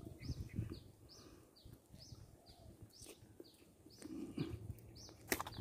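A small bird chirping over and over, short downward-sliding calls about two a second, faint. Low rustling comes near the start and again about four seconds in, and a sharp click sounds just before the end.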